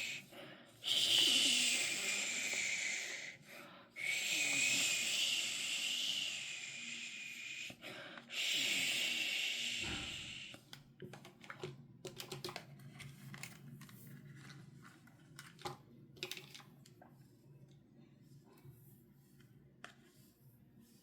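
Plastic packaging being torn open in three long noisy strokes over the first ten seconds. Then come scattered light clicks and taps, small plastic pieces being handled.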